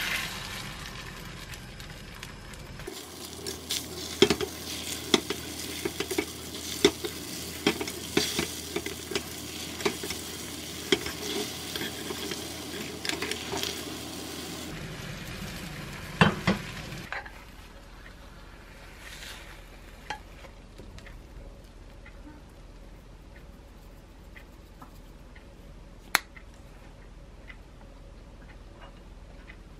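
Beaten egg sizzling in a hot frying pan on high heat while being stirred quickly with chopsticks, with many quick clicks and scrapes against the pan. The sizzling stops about 17 seconds in, leaving a quieter stretch with a few light clinks.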